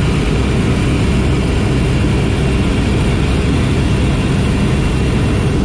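Loud, steady drone of a light propeller plane's engine and propeller, heard from inside the cabin.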